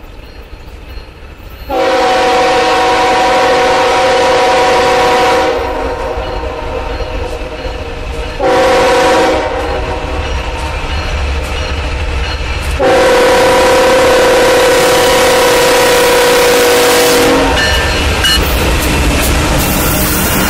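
BNSF freight locomotive's air horn sounding for a grade crossing as the train approaches: a long blast, a short one, then a long one, several notes at once. Near the end the lead locomotive passes close by with a heavy rumble of diesel engine and wheels on the rails.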